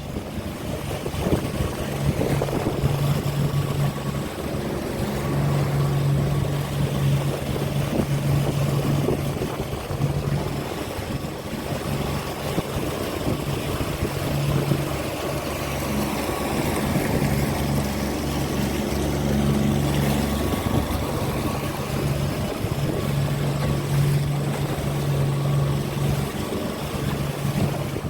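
Small boat's outboard motor running under way, with wind and water noise; its low hum rises and fades repeatedly.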